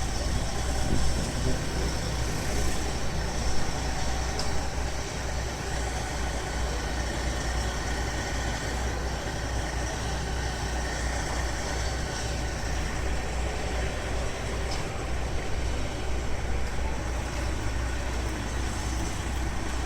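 Helicopter running: a steady low drone with engine noise over it, holding level throughout.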